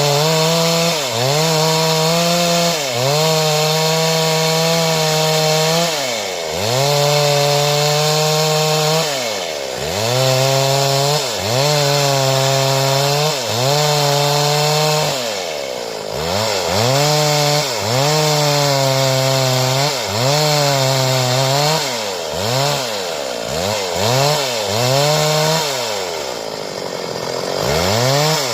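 Stihl two-stroke chainsaw running at high revs while cutting wood into boards. Every few seconds its revs fall away sharply and climb back, with a quicker series of dips near the end.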